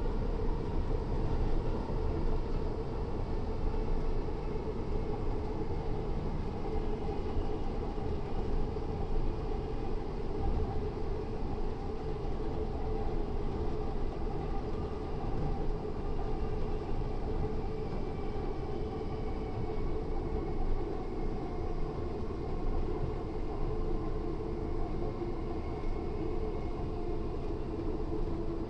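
Class 317/7 electric multiple unit running: its nose-suspended traction motors whine, several tones shifting slowly in pitch, over a steady rumble of wheels on rail.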